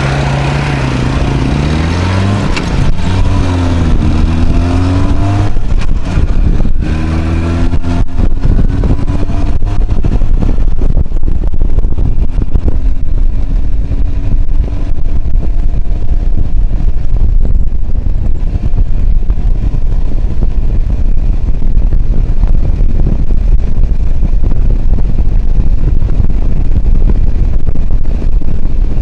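IZh Jupiter 5's two-stroke twin-cylinder engine accelerating through the gears, its pitch climbing and dropping at each shift over the first eight seconds. It then runs at steady cruising speed under heavy wind noise on the microphone.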